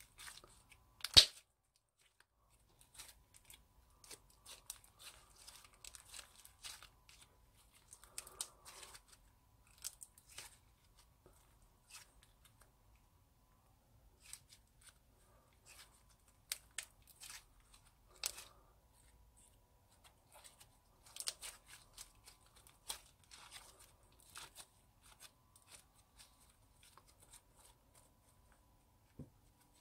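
Clear slime with glitter being squished, folded and stretched by hand, giving irregular runs of small wet crackles and pops. One sharp, much louder pop comes about a second in.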